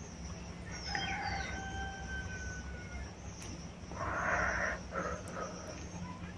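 A rooster crowing, one drawn-out call of about two seconds that falls slightly in pitch at the end. About four seconds in comes a short, close squelching rustle as a lemon wedge is squeezed by hand over the food.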